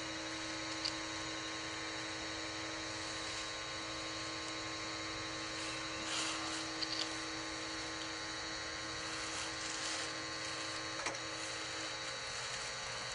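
Motorised pipe-pulling machine humming steadily as it draws a water well's drop pipe up out of the casing, with a few light knocks; its low hum tone cuts out near the end.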